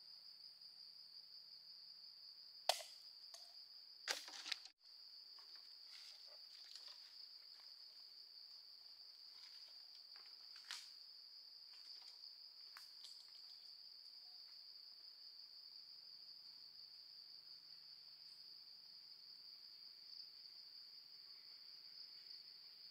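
Steady, high-pitched trilling of an insect chorus, such as crickets. A few sharp knocks cut through it, the loudest about three and four seconds in, and another about eleven seconds in.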